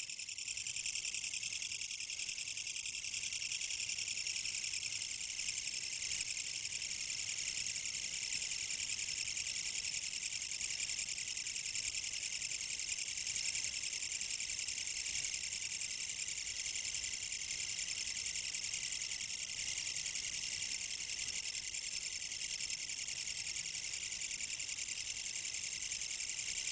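Kutsuwamushi katydid (Mecopoda niponensis) calling: a continuous, high-pitched rattling buzz that holds steady without a break.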